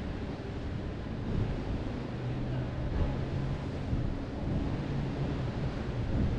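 Wind rumbling on the microphone over the noise of city street traffic, with a low steady hum coming in about a second in.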